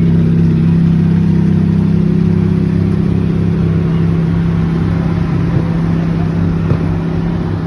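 Ferrari engine running at a steady, constant speed, its pitch holding even throughout and its level easing slightly in the second half.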